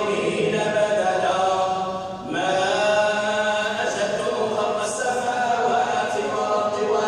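Quran recitation chanted in long, drawn-out melodic phrases, with a short break for breath about two seconds in.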